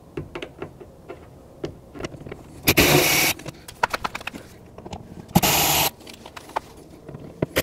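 Handheld power driver running in three short bursts of about half a second each, backing out the bumper's Torx screws and 7 mm bolts, with light clicks and taps between.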